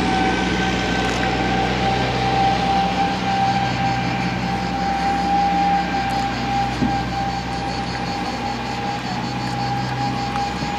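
Loud chorus of cicadas shrilling, a steady, dense buzz with a fine rapid pulse, over a low steady hum.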